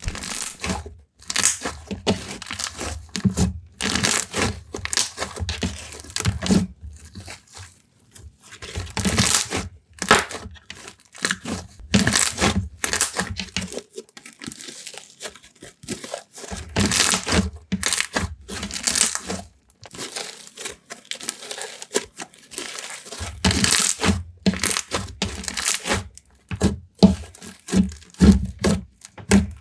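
Thick, glossy slime with foam beads being squeezed, stretched and pressed by hand, making dense irregular clicks, crackles and bubble pops in clusters with short pauses.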